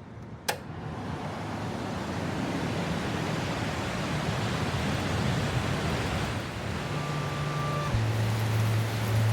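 Steady hiss of rain, fading up after a sharp click about half a second in; a low steady hum comes in near the end.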